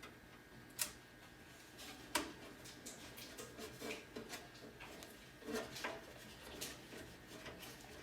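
Irregular small clicks and ticks of a screwdriver and screws fastening a motherboard into a steel PC case, with two sharper clicks about one and two seconds in.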